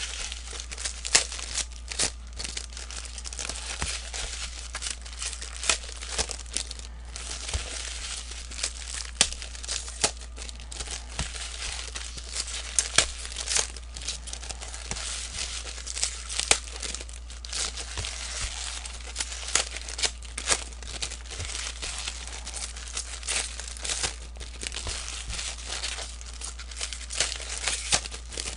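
Plastic trading-card pack wrappers being torn open and crumpled: continuous crinkling with frequent sharp crackles.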